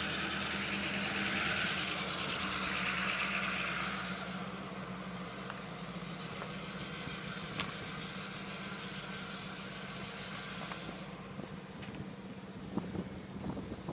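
A vehicle engine running steadily with a low hum, under a rushing hiss that is louder for the first four seconds and then eases off.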